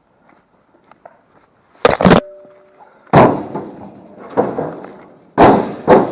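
Scrap metal being thrown onto a truck: a run of loud clanks and thuds, the first a double strike that leaves a brief metallic ring.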